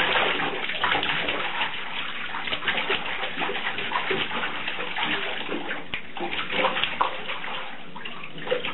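Shallow bathwater splashing continuously and unevenly as a baby kicks its legs and slaps its arms in a bathtub.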